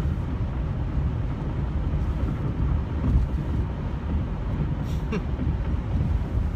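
Buick LeSabre cabin noise while driving: a steady low rumble of engine and road.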